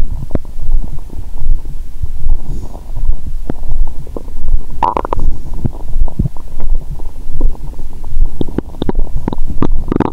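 Human stomach gurgling and rumbling, picked up close through a stethoscope microphone on the belly: digestion sounds a few hours after a meal. A steady run of small gurgles, with a louder squelching gurgle about five seconds in and another at the very end.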